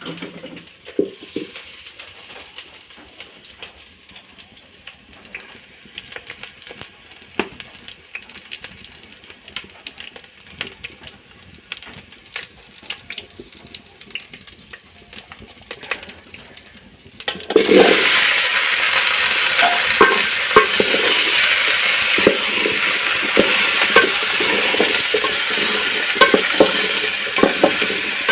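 Light clicks and knocks of kitchen utensils. About two-thirds of the way through, food goes into hot oil in a cooking pot and starts sizzling loudly, with the scrape and tap of stirring through the frying.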